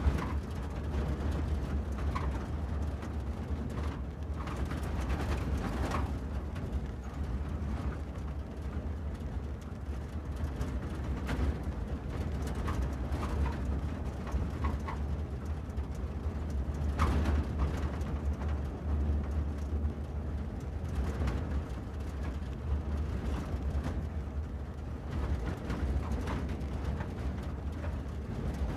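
A car driving along, its engine and tyres making a steady low rumble, with occasional faint light ticks or rattles.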